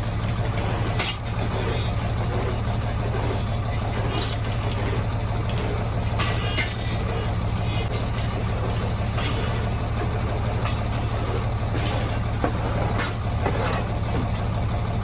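Farm tractor engine running steadily with a low drone while feed is pushed up, with a few short knocks and clicks.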